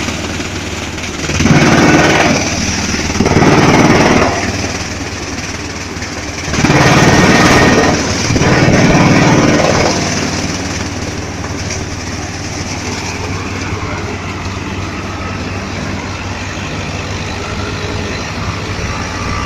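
Drum chipper running loudly, with four louder grinding surges in the first ten seconds as material is fed into the drum, then running on steadily with less load.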